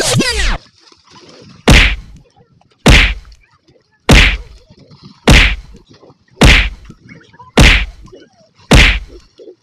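Punch sound effects dubbed over a staged fight: a sharp whack repeats seven times at an even beat, about one every 1.2 seconds. A loud noise with a falling pitch ends about half a second in.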